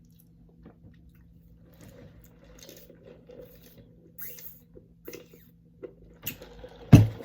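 Close-miked eating: chewing and small mouth clicks from a person eating chicken wings, with a single louder thump near the end.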